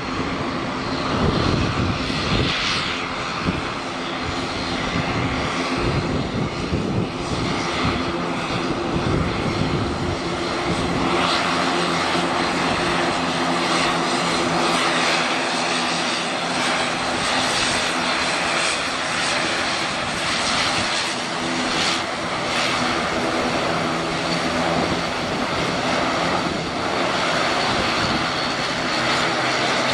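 Aircraft engines running at high power during a takeoff, a loud steady sound with several held tones under a broad rushing noise that starts suddenly.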